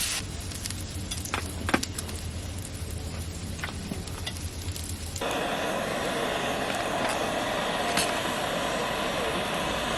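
Steady rushing hiss of cooking over a camping gas burner, with a few sharp clicks in the first half. The sound changes abruptly to a brighter, steadier hiss about five seconds in.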